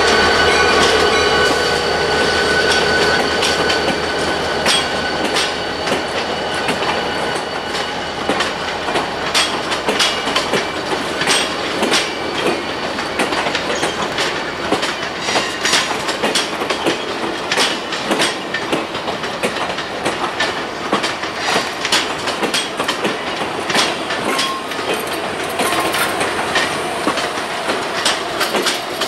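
EMD GP30 diesel locomotive passing, its engine tone fading over the first couple of seconds. Then a string of passenger cars rolls by with a steady rumble and irregular clickety-clack of wheels over the rail joints.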